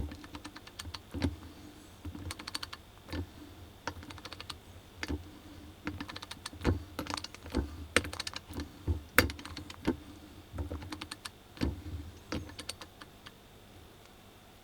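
Armstrong 19-903 3/8-inch-drive 30-tooth ratchet clicking in short, irregular runs as it is worked back and forth, with low knocks now and then. The clicking stops near the end.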